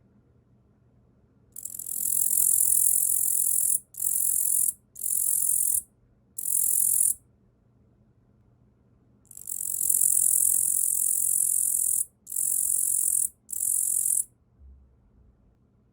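Male Tettigonia orientalis (yabukiri katydid) singing: a high, buzzing trill about a second and a half in, followed by three short bursts. After a pause of about two seconds comes a longer trill, then two more short bursts.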